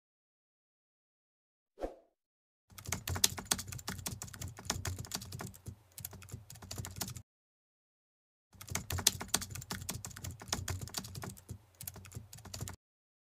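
Computer-keyboard typing sound effect: rapid key clicks in two runs of about four seconds each, separated by a pause of about a second and a half, set under a typed-out text animation. There is a single soft thump about two seconds in.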